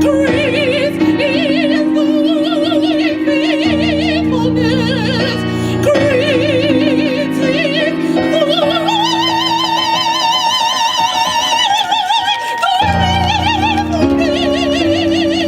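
Gospel singing with heavy vibrato over sustained instrumental chords, without clear words. About nine seconds in, the voice climbs to a long held note, and the low accompaniment drops out briefly just after it.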